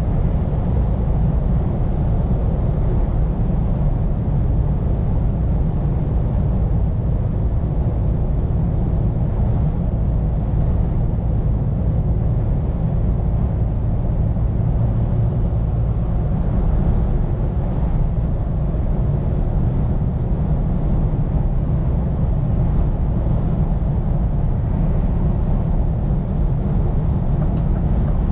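Scania P410 truck driving at a steady pace: a continuous low engine and road drone that holds even without changing.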